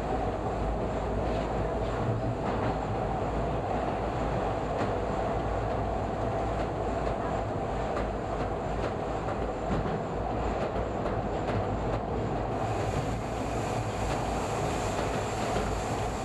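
Toronto subway train running through a tunnel, heard from inside the car: a steady rumble and rolling noise with occasional faint clicks. The sound turns brighter and hissier about three-quarters of the way in.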